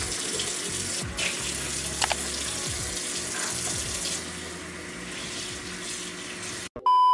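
Steady rushing hiss of running water, like a kitchen tap left on, with a couple of faint clicks. It cuts off abruptly near the end and a loud, steady electronic beep takes over.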